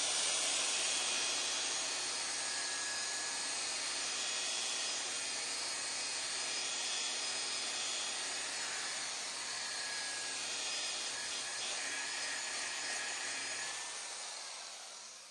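Electric rotary polisher with a foam compounding pad running steadily, buffing clear-coated paint with heavy-cut compound: a constant motor hum under the hiss of the spinning pad on the panel. It slows and dies away near the end.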